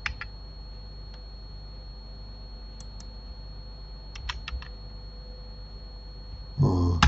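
Computer keyboard keys and mouse buttons clicking: single clicks spread out, then a quick run of four or five about four seconds in, over a steady faint electrical hum. A brief voiced murmur comes near the end.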